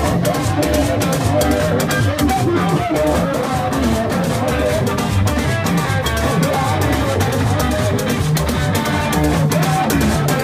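Loud live band music with a steady beat.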